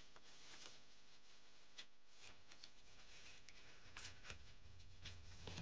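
Faint rustling and crinkling of a square sheet of origami paper as it is collapsed into a triangle and pressed flat by hand, with a few soft crackles scattered through.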